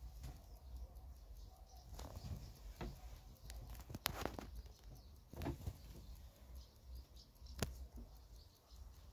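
Faint handling noise: a few irregular light clicks and taps over a low rumble.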